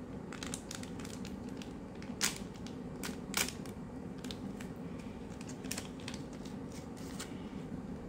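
Plastic POP IT Pets blind-bag packet crinkling and crackling as it is handled and torn open along its top strip, with two sharper crackles about two and three and a half seconds in.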